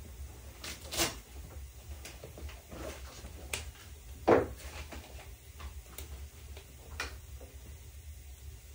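A few scattered knocks and clicks, the loudest a dull thump about four seconds in, over a low steady hum.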